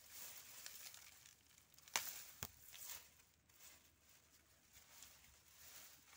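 Faint rustling and crackling of dry lemongrass leaves and stalks as a harvested clump is handled, with two sharper clicks about two seconds in.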